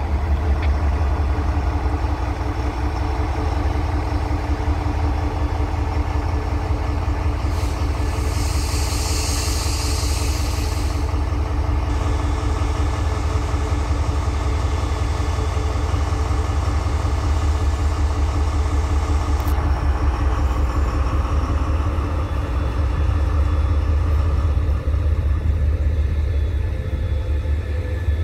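CRRC Qishuyan (CSY) diesel-electric locomotive's engine running steadily with a deep, even note. A hiss of air rises over it about eight seconds in, lasts about three seconds, and fades to a softer hiss.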